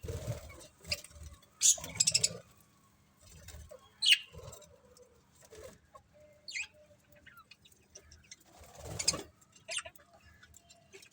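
Small pet parrots chirping in short, scattered high calls. A few louder noisy bursts come at the start, about two seconds in and near the end.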